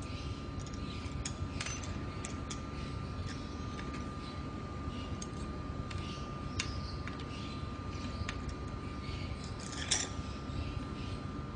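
Small metallic clicks and clinks as the parts of a stainless-steel stand are handled and bolted together at its joint, the sharpest clink about ten seconds in. Underneath runs a steady low hum with a faint steady whine.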